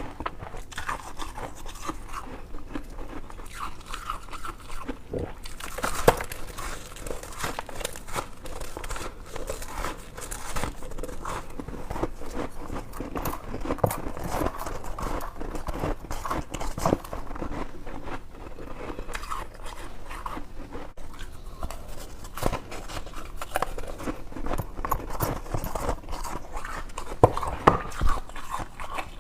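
A person biting and chewing frosty white freezer ice close to the microphone: a dense run of crisp crunches, with a few sharper, louder bites near the end.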